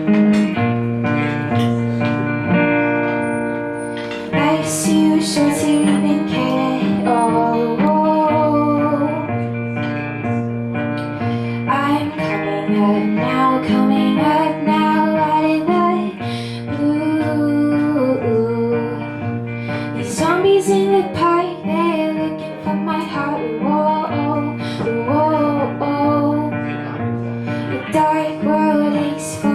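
Live song performance: a guitar strummed in a steady rhythm, with a female voice singing a wavering melody over it.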